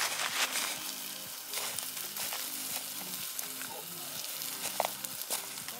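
Wood campfire burning down to glowing embers, hissing steadily with frequent small crackles and pops.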